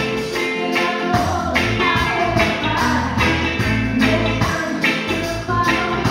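Live reggae band playing, with a woman singing lead.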